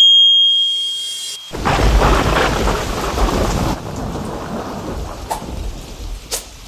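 A bright chime tone fades out over the first second or so. At about a second and a half a loud thunder rumble breaks in and eases into steady rain, with a couple of sharp clicks near the end.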